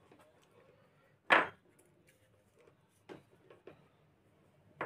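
Small hand tools clicking and knocking against a welding inverter's circuit board while a diode is desoldered: one sharp loud knock about a second in, then a few lighter clicks.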